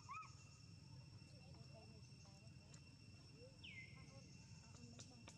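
Faint outdoor ambience: a steady high insect drone, with one short falling bird call about two-thirds of the way through and a few faint ticks.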